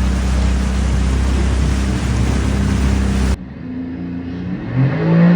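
Seabreacher watercraft's engine running under throttle amid a loud rush of water. The sound cuts off abruptly about three and a half seconds in, giving way to a quieter engine that revs up, its pitch rising near the end.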